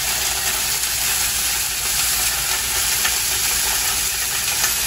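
Salmon fillets sizzling in oil in a lidded frying pan on a gas burner: a steady hiss with a few faint pops.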